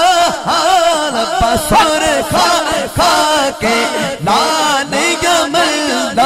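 Male naat reciter singing a Punjabi devotional kalam into a microphone, drawing out long wavering, ornamented notes.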